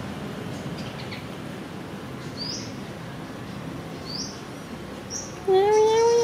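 A bird chirping: three short, high chirps that sweep upward, a second or two apart. Near the end a much louder drawn-out call, slightly rising in pitch, lasts just under a second.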